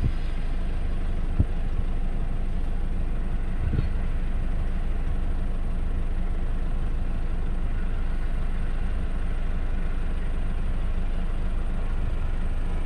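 Two TasRail TR class diesel-electric locomotives running with a steady, even low engine rumble as their train departs at walking pace.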